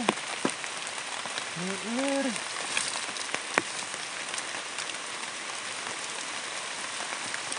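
Light drizzle falling on foliage, a steady fine hiss. A brief voice comes about two seconds in, and a couple of sharp ticks are heard.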